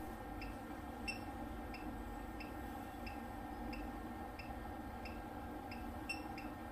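PCT200i CT analyzer giving short high beeps at an even pace, about one every two-thirds of a second, over a steady low hum, while its automatic CT test is running.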